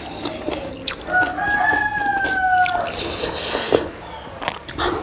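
A rooster crows once in the background, a single long, slightly falling call starting about a second in. Around it are close eating sounds: short clicks and mouth noises, and a hissy slurp of noodles a little past the middle.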